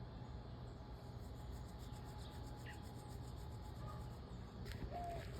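Faint outdoor ambience: a steady low rumble from wind or handling on the microphone, with a few faint distant bird chirps and some soft clicks near the end.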